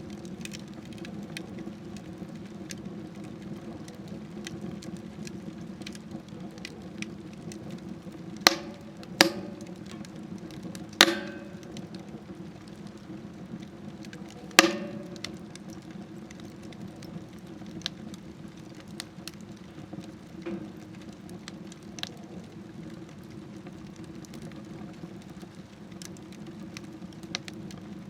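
Wood fire burning in a smokeless stove: a steady low rush of flame with frequent small crackles and four loud, sharp pops of splitting wood clustered a third to halfway through.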